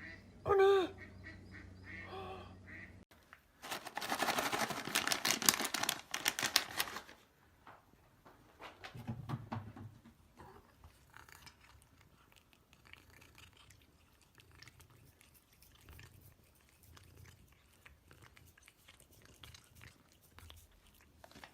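Bird calls, loudest in a dense, harsh run lasting about three seconds, starting some four seconds in; faint sounds follow.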